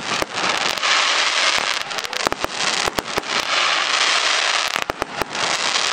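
Aerial fireworks going off: a string of sharp bangs from bursting shells, irregularly spaced, over a continuous dense crackling hiss.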